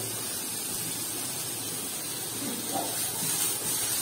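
Steady hissing sizzle of julienned cabbage, capsicum, carrot and onion stir-frying in oil in a pan.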